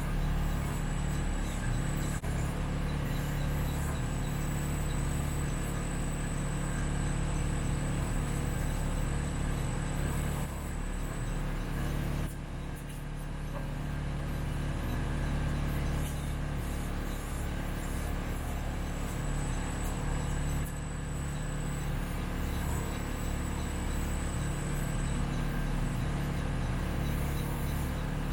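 Kubota B2650 tractor's three-cylinder diesel engine running steadily while working the BH77 backhoe, its note dropping for a few seconds about halfway through. A faint high whine comes and goes over it.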